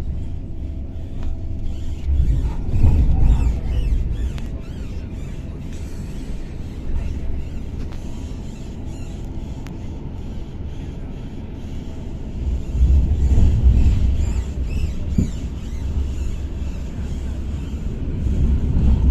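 Running noise of a tram-train heard from inside the car as it crosses a bridge: a steady low rumble of wheels on rail with a faint hum, swelling louder about two seconds in and again past the middle.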